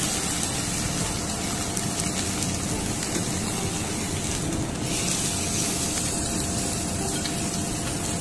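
Oil sizzling steadily in a stainless steel frying pan as a fillet fries.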